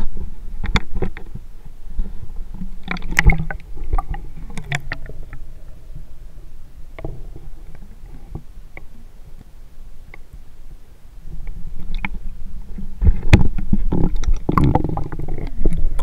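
Muffled low rumbling of water moving over a camera held underwater, with scattered clicks and knocks that grow louder about three seconds in and again over the last few seconds.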